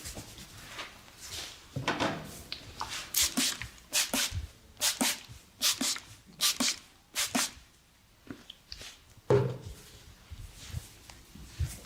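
Massage sounds of hands working on skin: a run of short swishing strokes, mostly in pairs, about one pair a second, then a single dull thump near the end.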